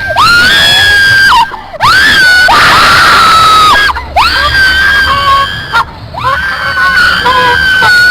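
A person screaming: about five long, very loud, high-pitched screams one after another, each swooping up in pitch and then held for a second or so.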